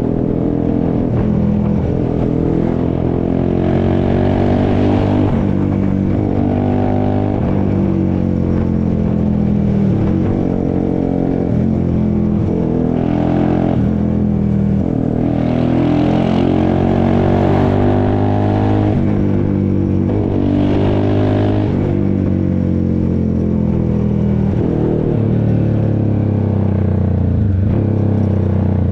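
Honda CBX 250 Twister single-cylinder engine, bored out with a 79 mm kit and fitted with a tuned exhaust, running loud with a steady low exhaust note. The revs climb and drop back several times.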